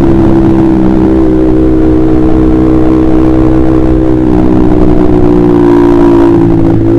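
Honda CBR150R's single-cylinder engine running through a KJ Pro Performance aftermarket exhaust, holding fairly steady revs with only slight rises and dips in pitch.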